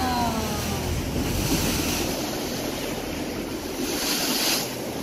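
A boat's bow wave rushing and splashing along the hull on open sea, with wind buffeting the microphone; the wash swells louder about a second in and again around four seconds in.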